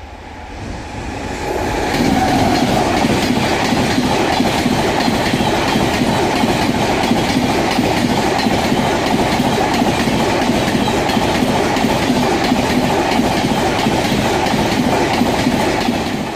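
Howrah Rajdhani Express passenger coaches passing at high speed: a loud, steady rush of wheel-on-rail noise that builds over the first two seconds and drops away near the end.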